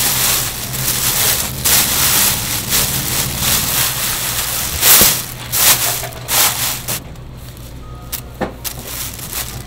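Thin plastic bag crinkling and rustling as it is pulled and handled around a large ball of dough, with a sharp click about halfway through. It dies down to a few light crackles near the end.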